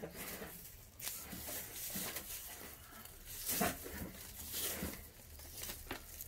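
Rustling and light handling noises from packing materials being worked by hand, with a louder burst just past halfway.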